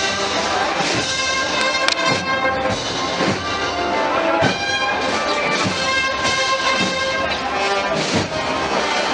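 Processional marching band playing a Holy Week march, with brass carrying the melody over drum strokes about once a second.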